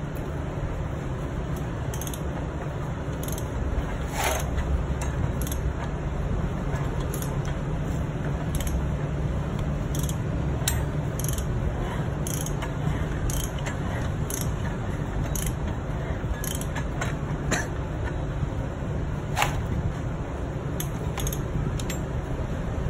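Scattered light metallic clicks, taps and scrapes of hands handling the metal parts of a partly assembled Aprilia RSV4 engine, its cam gears and timing chain, over a steady low background hum.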